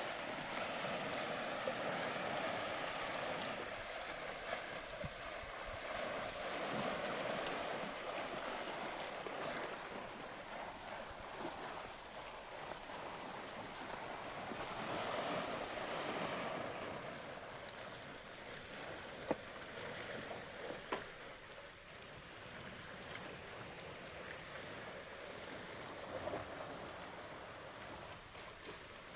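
Small sea waves washing against the shore, the sound swelling and fading slowly every several seconds, with a couple of faint knocks about two-thirds of the way through.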